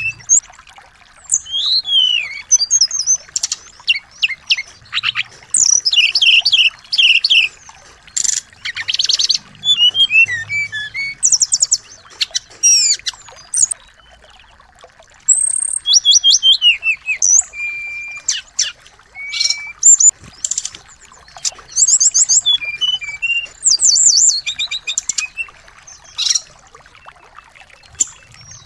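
Small songbirds singing in quick phrases of high chirps, rapid trills and short whistles, with brief pauses between phrases.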